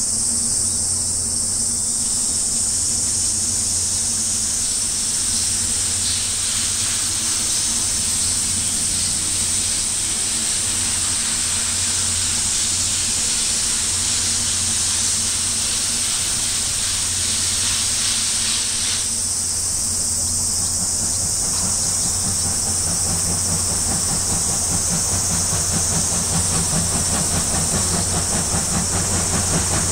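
Steam locomotive hissing steam loudly and steadily over a low steady hum, with a low rhythmic pulsing building up in the last several seconds.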